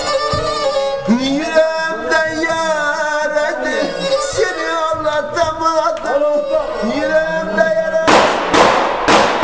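A Black Sea kemençe plays a folk tune with a man singing along. About 8 seconds in, the music gives way to a burst of clapping.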